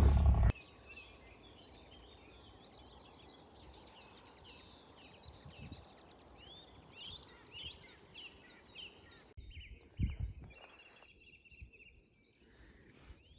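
Faint outdoor birdsong: many small birds chirping and trilling together in a dawn chorus. About nine seconds in it cuts to sparser bird calls with a couple of low thuds.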